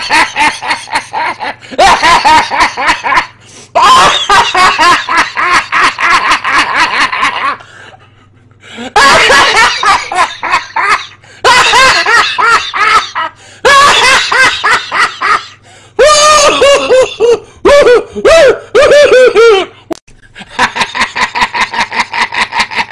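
Loud, rapid pulsing laughter in about eight bouts separated by short breaks; in one bout near the middle the pitch drops step by step.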